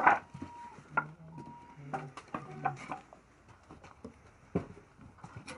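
Handling noise of items being picked up and moved: a loud knock at the start, then scattered sharp clicks and knocks over the next few seconds.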